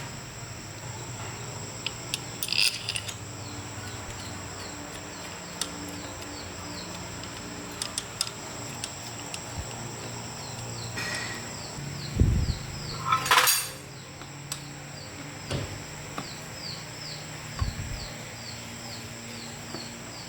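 Scattered short clicks and knocks of handling or work, with a louder clatter about twelve to thirteen seconds in, over a steady low hum. An insect chirps in quick even repeats throughout.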